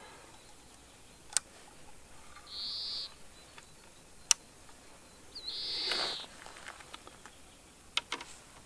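Sharp clicks from handling the spinning reel of a feeder rod, the loudest a little over four seconds in, with two short high calls about three seconds apart, plausibly from a bird.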